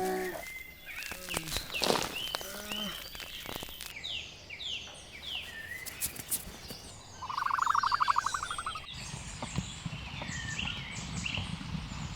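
Birds chirping in many short, falling chirps, with a loud, rapid buzzing trill lasting about a second and a half, about seven seconds in. A low rumble of background noise comes in over the last few seconds.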